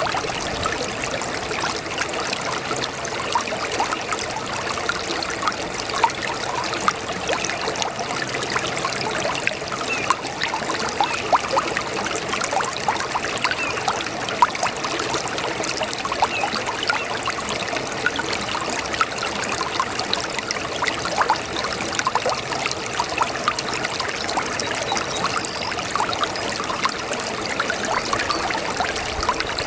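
A babbling brook: water running and trickling steadily, with a constant patter of small splashes.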